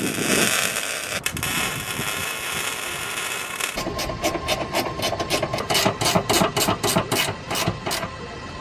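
Arc welding: a steady crackling hiss that cuts off abruptly about three and a half seconds in. Then a quick, even ticking rhythm of about four beats a second.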